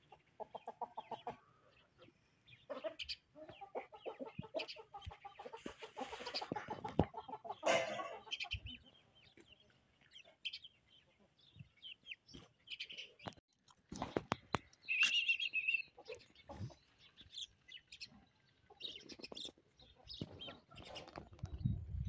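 A small flock of chickens clucking as they forage, in short pitched calls that are busiest a few seconds in, with a higher call about two-thirds of the way through.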